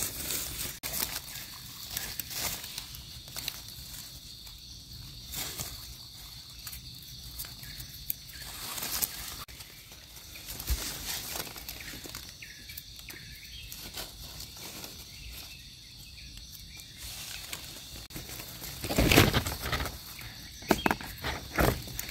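Irregular rustling and crackling of forest leaf litter and undergrowth handled while mushrooms are picked and cut with a knife, over a steady high insect drone. A louder burst of rustling comes near the end.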